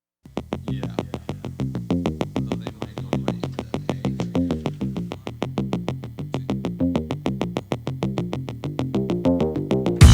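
Electronic background music: a fast, even synthesizer pulse with changing notes, about five to six a second, building into a louder, fuller section at the very end.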